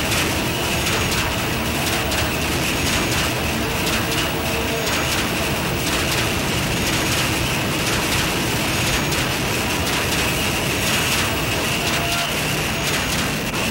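Harsh industrial noise music: a dense, steady wall of hissing, grinding noise that holds the same loudness throughout, with a faint high blip about every two seconds.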